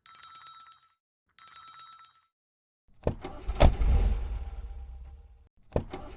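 Cartoon sound effects: a rapidly trilling bell rings in two short bursts, then a different effect of sharp hits over a low, slowly fading rumble starts about three seconds in and begins again near the end.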